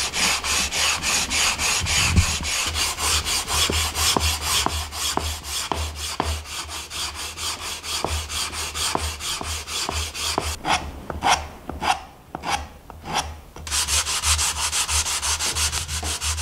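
Sandpaper on a wooden sanding block rubbed back and forth over oak box parts, in quick, even strokes several a second. A little past the middle the strokes briefly slow to a few separate ones. This is the final hand sanding of the bare wood before finishing.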